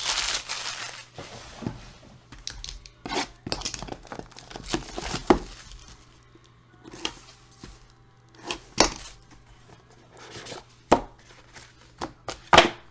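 Plastic shrink-wrap being cut and torn off a Leaf Flash football card box, a loud rip in about the first second. Then scattered taps, scrapes and clicks as the cardboard box is turned over, opened and the cards slid out.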